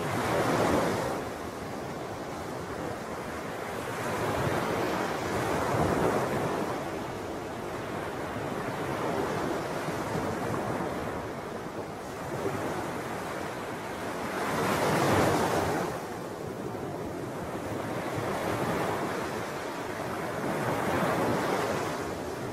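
Small waves washing in on the lagoon shore: a steady rush of water that swells and ebbs every few seconds.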